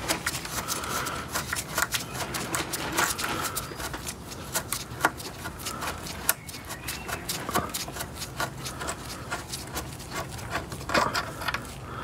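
Rapid, uneven metal clicking and rubbing of a hand tool working on a motorcycle's front brake caliper as the long caliper mounting bolt is undone and wound out.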